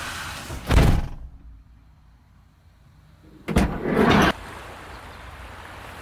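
A car door shut with a heavy thump, after which the outside noise is cut off and it goes hushed. A few seconds later comes a second loud door sound lasting under a second, and the outside noise comes back.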